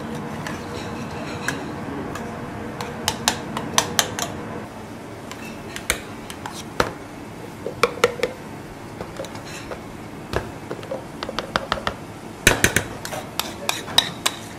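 Metal spoon stirring and scraping a thick potato-and-truffle purée in a small stainless-steel saucepan, with repeated sharp clinks and knocks of spoon against pan. Over a steady background hum that drops away about a third of the way in, then a quick run of clinks near the end as the purée is scraped from the pan into a plastic jug.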